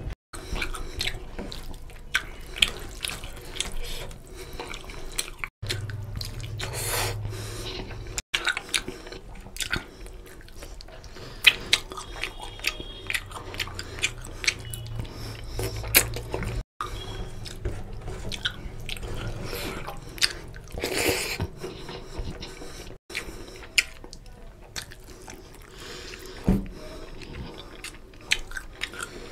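Eating by hand: fingers squelching basmati rice through oily chicken curry, meat pulled from chicken leg bones, and wet chewing and lip smacking, made of many small clicks and wet crackles. A few brief total silences break it up.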